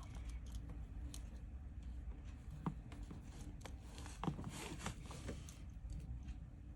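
Scattered small clicks and taps of an iPhone XR and its replacement screen being handled and fitted together, with a couple of sharper ticks in the middle, over a steady low hum.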